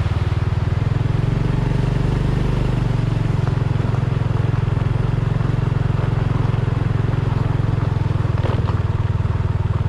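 Honda Dash 125 FI's single-cylinder four-stroke engine running steadily as the motorcycle is ridden along at low speed.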